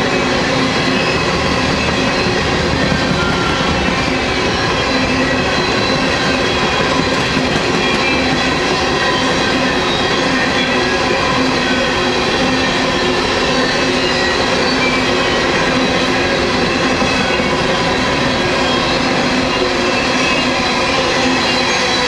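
Coal hopper cars of a long freight train rolling past close by: steel wheels running on the rail, loud and steady, with several high ringing tones held above the rumble.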